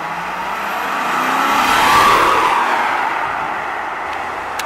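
Maserati 4200 coupé's V8 engine accelerating away and passing close by. The engine note rises and the sound swells to its loudest about two seconds in, then eases as the car drives off. There is a sharp click near the end.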